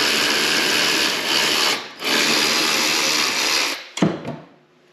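Cordless 3/8-inch electric ratchet running in two long runs, with a short break just before two seconds in, as it backs out a snowmobile chaincase cover bolt. It stops near four seconds, and a short knock and light clatter follow.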